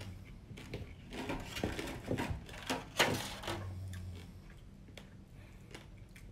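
Crisp cracking and crunching of a small deep-fried crab's shell being broken apart by hand, with a sharp crack about three seconds in.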